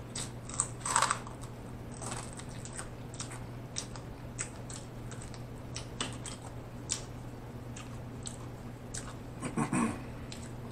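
Close-miked mouth sounds of someone eating fried chicken: wet chewing, lip smacks and small crunchy clicks, scattered at an uneven pace. A steady low hum runs underneath.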